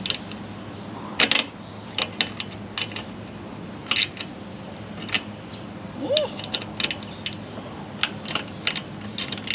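Irregular sharp metal clicks and clinks as fasteners are worked into the groove of an aluminum van roof rack and tightened by hand.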